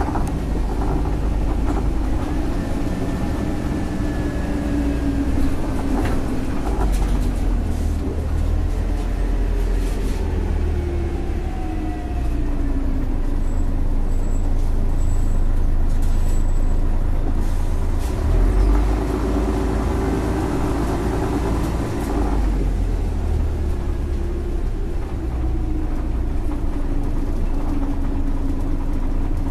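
Scania L113CRL single-decker bus heard from inside the passenger saloon: its rear-mounted 11-litre six-cylinder diesel runs under a steady low rumble, with engine and driveline whines rising and falling as the bus speeds up and changes gear. A long climb in pitch about two-thirds through cuts off suddenly, and a few brief rattles come from the body near the start.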